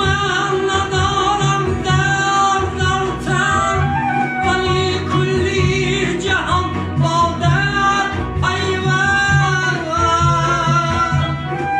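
Music: a song, with a singing voice holding wavering notes over instrumental accompaniment and a steady beat.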